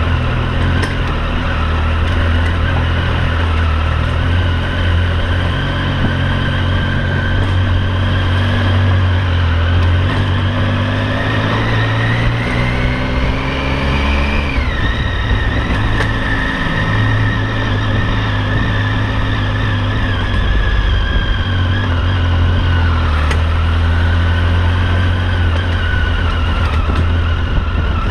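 Triumph Tiger 800 XC's three-cylinder engine running while the bike is ridden. About halfway through, its pitch rises for a few seconds and then drops sharply with a gear change, and it runs steady after that.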